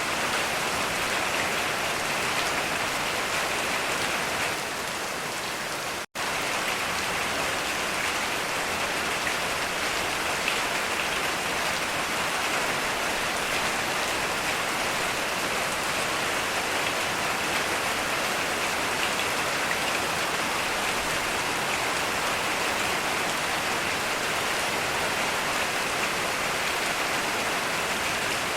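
Heavy rain falling in a steady, dense hiss, with no thunder. About six seconds in, the sound drops out completely for an instant, then the rain resumes.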